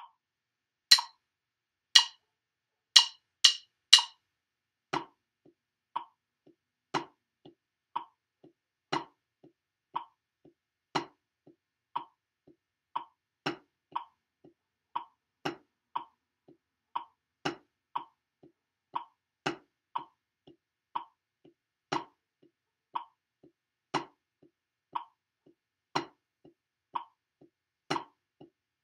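Sticks on a practice pad sitting on a snare drum play steady eighth notes at 60 BPM, two strokes a second, with some strokes struck as louder accents. A bright metronome click sounds on each beat, after a count-in of a few loud clicks in the first seconds.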